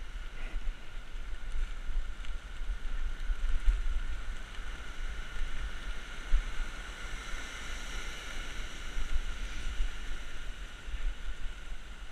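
Wind buffeting the microphone of a camera on a moving bike, a gusty low rumble, over the steady rush of a fast-flowing river.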